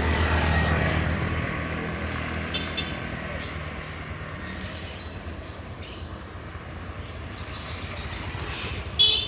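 A bus's engine rumbling as it passes and fades away, right after its telolet horn melody, leaving steady road background. A brief, loud, high-pitched sound comes near the end.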